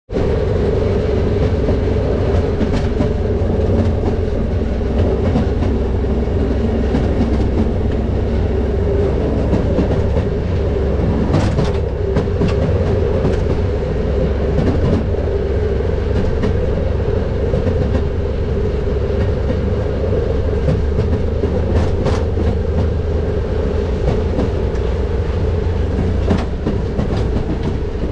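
Railroad motorcar (track speeder) running along the rails: a steady engine drone over a heavy rumble from the wheels, with a scattering of sharp clicks as the wheels pass over rail joints.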